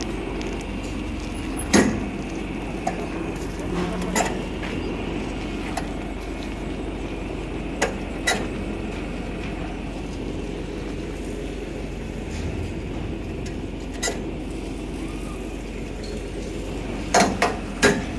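Sewer suction and jetting truck's engine running steadily, with occasional sharp metal clinks and knocks, three in quick succession near the end.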